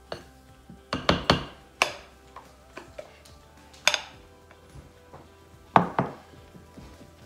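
Wooden spatula and glass mixing bowls knocking together a few times, sharp clacks about 1, 2, 4 and 6 seconds in, as beaten egg whites are scraped out and folded into pancake batter. Soft background music plays underneath.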